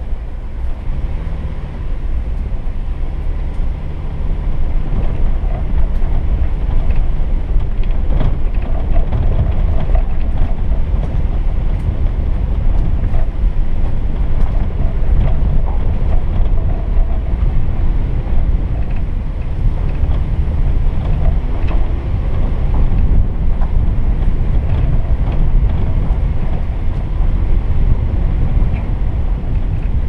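A 4x4's engine running at low speed under a heavy low rumble as it crawls over a rough dirt trail, with small knocks and rattles from the bumpy ground and wind buffeting the microphone. It gets louder about four seconds in.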